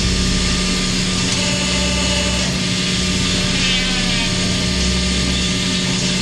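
Industrial round waste baler running as it bales worn car tyres: steady machine noise with a constant low hum and a dull low throb that comes back every second or two.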